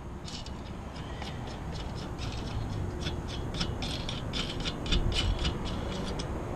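Hand ratchet wrench clicking in quick runs as bolts on an antenna mounting bracket are worked, busiest in the middle, over a steady low rumble.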